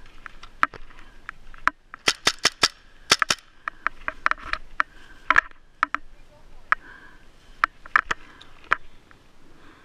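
Paintball markers firing: sharp pops in irregular bursts, some in quick runs of three or four, the densest run a couple of seconds in.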